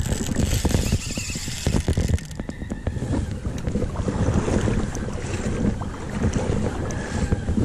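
Wind buffeting the camera's microphone as a steady rumble, with many small clicks and knocks from a spinning reel being wound and the rod being handled.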